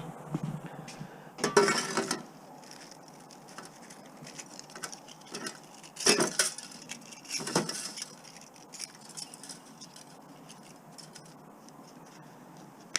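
Copper winding wire from stripped appliance motors rustling and clinking against a metal pot as it is pressed into a ball: three short bursts, about a second and a half, six and seven and a half seconds in, with light clicks between.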